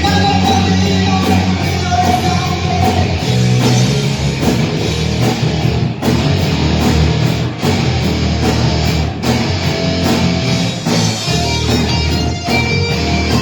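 Live rock band playing a heavy song: electric guitar over bass and a steady beat of drum and cymbal hits.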